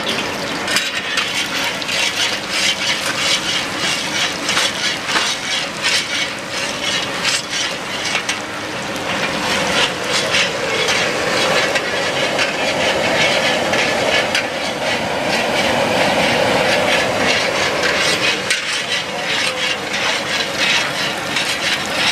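Chopped garlic frying in hot oil in a large iron kadai: a steady, crackling sizzle, with a metal spatula stirring and scraping in the pan.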